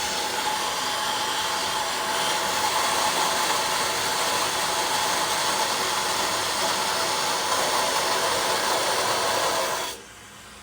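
Water gushing out under line pressure through a freshly fitted valve, drained off to flush the line: a steady, loud hissing rush that starts suddenly and cuts off near the end.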